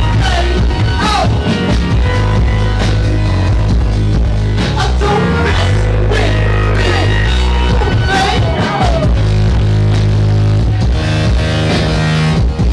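Loud live electronic music in a club, with a heavy bass line and gliding, wavering synth lines over it.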